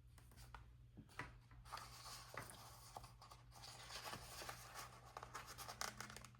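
Faint scratching and rustling of paper as planner stickers and sticker sheets are handled, with a few light clicks, over a steady low hum.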